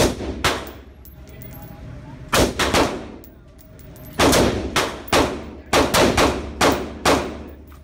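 Rifle shots fired at an indoor shooting range, about fifteen in uneven quick strings with short pauses between them, each shot echoing briefly off the range walls.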